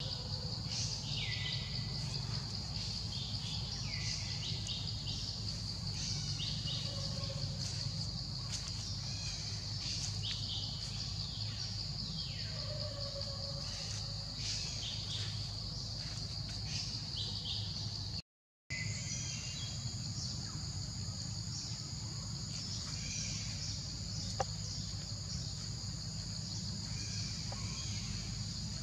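A steady, high insect drone at one pitch, with frequent short bird calls over it, several falling in pitch, and a steady low rumble underneath. The sound cuts out for a moment about two-thirds of the way through.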